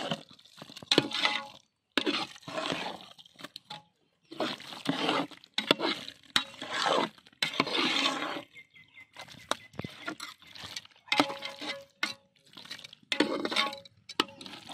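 Long metal spatula scraping and turning chicken pieces in thick wet masala in a large metal pot: repeated stirring strokes, roughly one every one and a half to two seconds, with clinks of metal on the pot. The chicken and masala are being stirred so they do not stick to the bottom.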